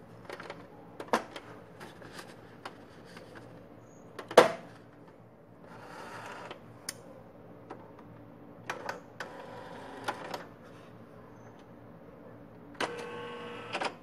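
Brother ML-100 electronic typewriter working: irregular mechanical clicks from its keys and print mechanism, one loud sharp strike about four seconds in, and short motor whirs, with a longer whining motor run near the end.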